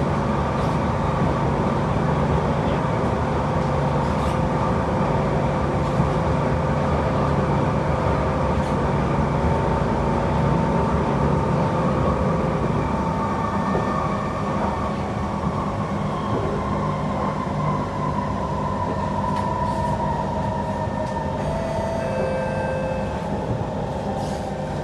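Cabin noise of a Kawasaki C151 MRT train running on the rails, a steady rumble with a whine from the traction motors. From about halfway through, the whine falls steadily in pitch as the train slows.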